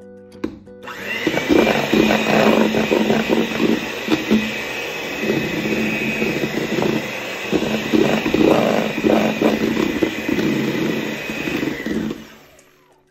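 Electric hand mixer whisking egg whites into meringue in a stainless steel bowl. The motor starts about a second in, runs with a steady whine under the churning of the beaters, and stops near the end. The meringue is being beaten to a heavy, glossy stage that holds stiff peaks.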